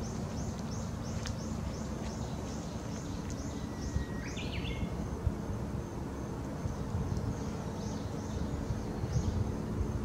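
Outdoor ambience: thin, high chirps repeating about three times a second, thinning out after the middle, with a brief whistled call about four seconds in, over a steady low rumble.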